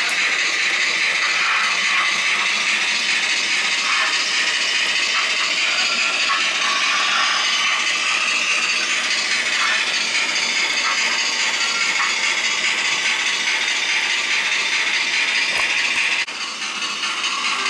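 N gauge model trains running on the layout: a steady whirr and rattle of small locomotive motors and wheels on the track. There is a single click near the end.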